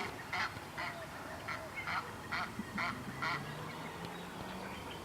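A bird calling: a series of about eight short honking calls, roughly two a second, which stop about three and a half seconds in, over a faint steady low hum.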